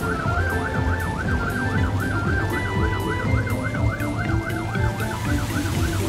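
Fire truck siren in a fast yelp, rising and falling about four times a second without a break, over background music.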